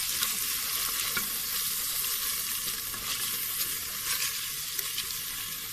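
Chicken breast pieces frying in hot oil in a pan: a steady sizzle with scattered crackles.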